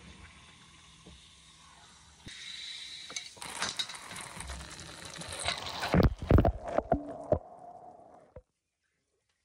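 Water spraying under pressure from a loosened reverse osmosis filter housing, because the cold water supply was not fully shut off. A loud hiss starts a couple of seconds in, with a run of loud knocks and clatter in the middle, and everything cuts off suddenly near the end.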